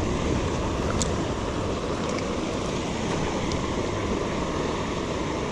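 Steady rushing of shallow creek water, with a couple of faint ticks about one and two seconds in.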